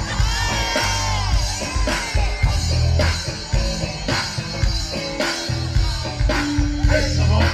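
Live funk band playing over a PA: a heavy bass line and steady drum beat, with a voice singing near the start.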